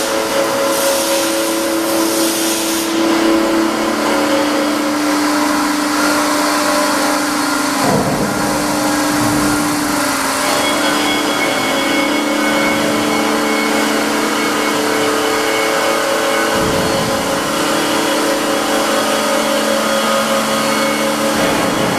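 Steady mechanical hum of a running ANAYAK bed-type milling machine and its auxiliary units, made of several steady tones. The main tone shifts slightly partway through, and a higher whine joins about halfway.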